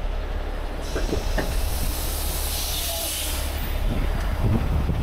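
Heavy rotator tow truck's diesel engine running with a steady low rumble while it holds a lifted box truck in the air. A long hiss, like air being let out, sets in about a second in and stops near the end, with a couple of light knocks about a second in.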